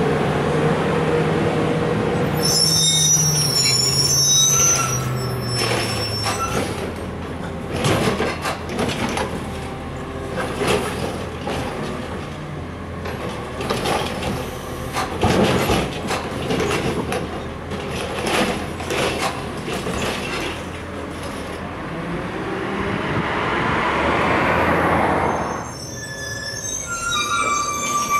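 Crane Carrier LET2 garbage truck with a Heil Rapid Rail side-loader: the engine slows as the squeaky brakes squeal the truck to a stop a few seconds in. A run of knocks and bangs follows as the automated arm lifts and empties a cart, and the high brake squeal comes again near the end as the truck stops once more.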